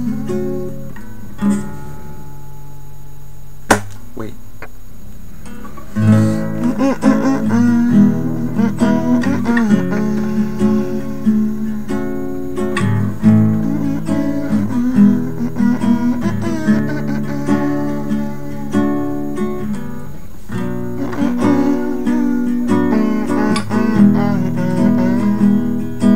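Acoustic guitar strummed: chords ring out for the first few seconds with a sharp click about four seconds in, then steady rhythmic strumming from about six seconds in. A man hums the melody over the guitar.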